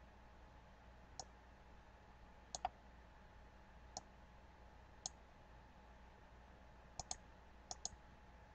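Computer mouse button clicking: about nine short, sharp clicks at uneven intervals, several in quick pairs like double-clicks, over faint background hiss.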